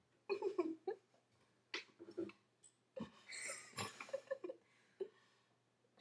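Girls giggling and making short, wordless vocal noises in separate bursts, with a longer, breathier laugh about three seconds in.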